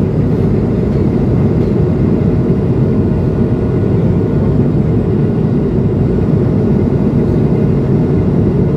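Steady in-cabin drone of an Airbus A220-100 in flight: the low rumble of its Pratt & Whitney PW1500G geared turbofan engines mixed with rushing airflow along the fuselage, with a faint steady hum on top and no change in level.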